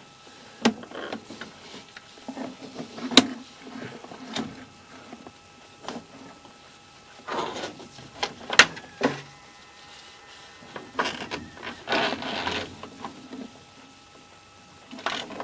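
Handling noise from sewer inspection camera gear: scattered sharp clicks and knocks with a few short scraping rustles, over a faint steady electronic whine.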